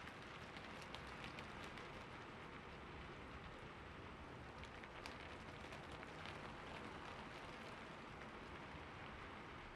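Faint steady rain falling, with scattered sharp drop ticks.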